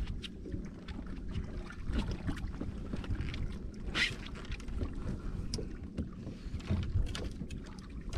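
Wind rumbling on the microphone in an open bass boat, with scattered small knocks and clicks and a brief hiss about four seconds in.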